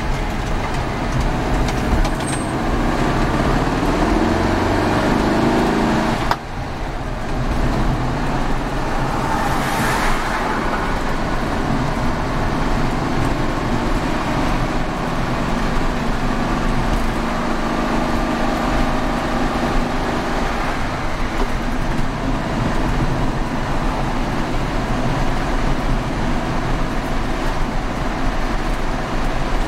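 1969 VW Beetle's air-cooled flat-four engine pulling the car up through the gears, heard from inside the cabin with road noise. The engine note rises for several seconds, breaks off about six seconds in at a gear change, then settles into steady cruising.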